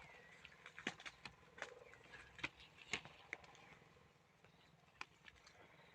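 Faint, scattered snapping and crackling of dry pigeon pea plants and pods, a dozen or so sharp clicks bunched in the first three seconds with a few more later. A short chirp sounds at the very start.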